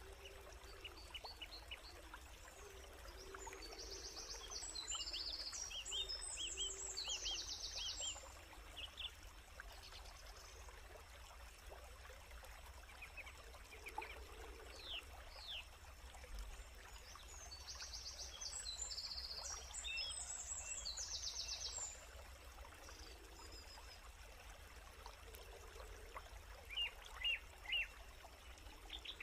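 Forest birds singing in two long bouts of rapid, high trilled phrases, with a few short chirps between them, over a faint steady stream. A few sharp clicks near the end.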